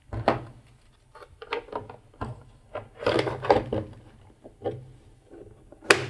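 Hard plastic knocks and rubbing as a freezer cool pack is set into a plastic tumble dryer condenser box and the box's plastic lid is fitted and pressed down, with a sharp click near the end.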